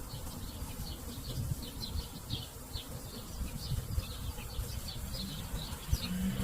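Hummingbirds at a feeder: short high chirps repeated irregularly several times a second, over a low wind rumble on the microphone. A brief low hum comes in near the end.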